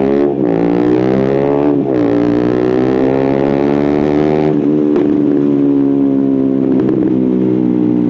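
KTM Duke 125's single-cylinder four-stroke engine through an Akrapovic silencer, under way and accelerating. The revs climb and drop with gear changes about half a second in and near two seconds, dip again around four and a half seconds, then hold a steady pitch.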